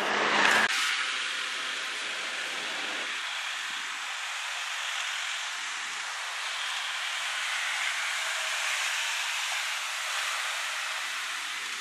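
Steady hiss of street traffic and tyres on the road, with little engine rumble. It opens with a short, loud rush of noise that cuts off suddenly, and it swells slightly as a car rolls past near the end.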